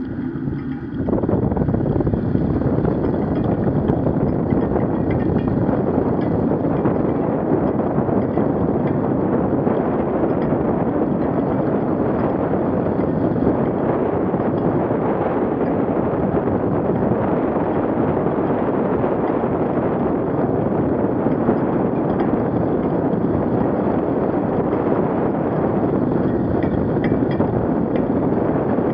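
Knobby bicycle tyre rolling over wet asphalt, heard close up from a camera mounted by the front wheel, with wind rushing over the microphone. The noise is steady and jumps louder about a second in.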